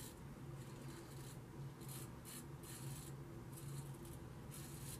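Ming Shi 2000S adjustable double-edge safety razor scraping through lathered stubble on the neck in a series of short, faint strokes, at a setting described as plenty aggressive.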